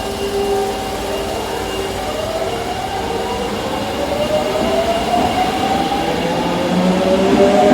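Osaka Metro 22 series subway train pulling away from the platform: its traction motors give a whine of several tones that rises steadily in pitch as it gathers speed, over the noise of wheels on rail.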